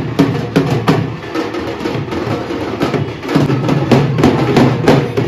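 Drums and other percussion of a passing street procession playing loudly, with many quick, irregular strikes.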